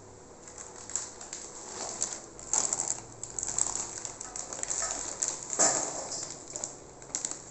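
Plastic bag crinkling and crushed jaggery pieces scraping and pattering as they are tipped into a steel pan, in an irregular run of crackly rustles, busiest in the middle.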